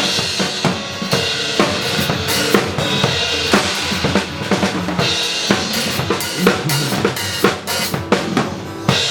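Drum kit played live over a pop backing track: bass drum and snare hits in a busy, steady beat.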